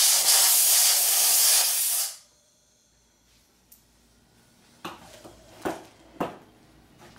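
Compressed-air blow gun with a high-focus nozzle blasting into the voice-coil gap of a subwoofer magnet: a loud hiss that cuts off about two seconds in, blowing debris out of the gap before the recone. A few light knocks follow.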